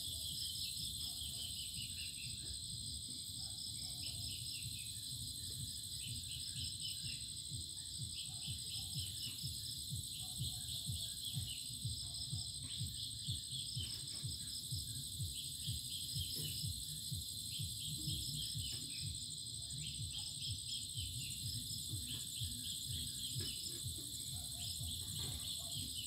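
Evening chorus of crickets trilling without pause in a high steady band, with short chirps repeating throughout, over a low background rumble.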